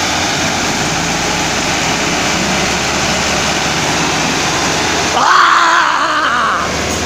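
Two Massey Ferguson diesel tractors, a 385 and a 375, running under heavy load in a tug-of-war with their rear tyres churning the dirt, as one dense, steady noise. A loud shout rises over it about five seconds in.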